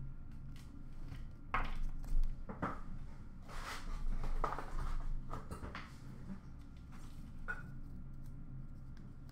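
Hands handling trading cards and their packaging on a counter: a string of short rustles and clicks, with a longer rustle about four seconds in.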